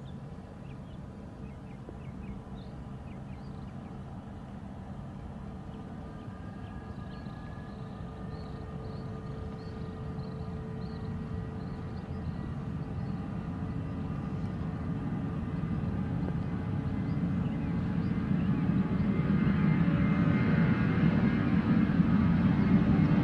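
Twin-engine Airbus airliner's jet engines at takeoff power during its takeoff roll on a wet runway. The sound grows steadily louder as the jet approaches, with a steady whine over the rumble.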